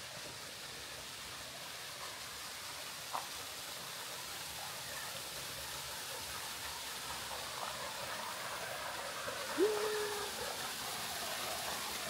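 A six-metre waterfall rushing steadily, an even hiss of falling water. There is a small click about three seconds in, and a short rising then held call about ten seconds in.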